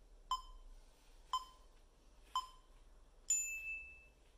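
Electronic interval-timer countdown: three short beeps about a second apart, then one longer, higher beep marking the start of the timed stretch.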